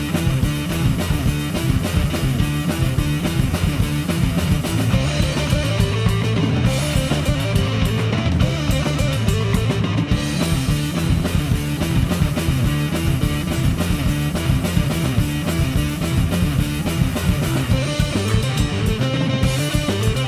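Rock band playing: electric guitar and bass over a drum kit, a steady, continuous full-band passage.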